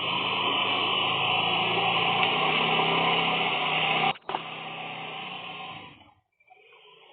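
A small motor running steadily with a low hum. About four seconds in it breaks off sharply, comes back quieter, and fades out a couple of seconds later.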